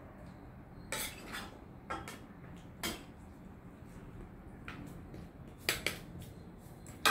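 Stainless steel ladle scraping and clinking against a steel pot and serving plate while thick chicken masala is scooped out: a series of short, sharp clinks and scrapes, roughly one a second.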